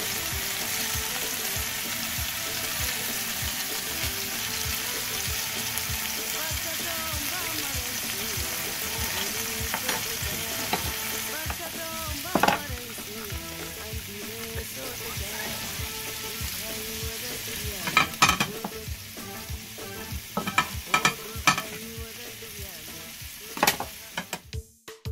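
Chicken breasts sizzling as they fry in oil in a flat pan, a steady hiss that eases off in the second half. Over it come a few sharp knocks, a knife striking a cutting board.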